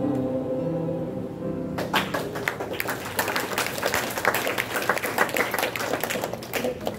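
A choir's final held chord dies away, and about two seconds in the audience breaks into applause, a dense run of hand claps.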